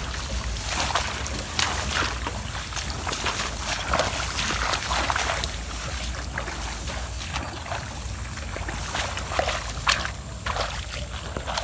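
Irregular splashing and sloshing in shallow swamp water as a hand dip net is swept through wet grass and lifted out, with swishes of grass and wading steps, over a steady low rumble.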